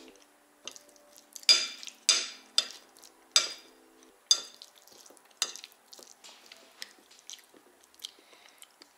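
Metal fork clinking and scraping against a plate as food is picked up, a string of sharp clicks, the loudest in the first half, with soft chewing between.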